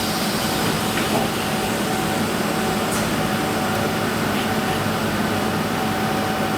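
Powder-bed 3D printer running, a steady mechanical whir and hum with a faint tone that switches on and off, as it feeds powder down from its hoppers and drags it across the build bed.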